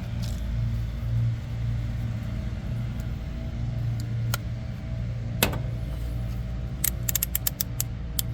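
A steady low mechanical hum, with a sharp metallic click about five seconds in and a quick run of small metallic clicks and clinks near the end, as of hand tools on the unit's service panel.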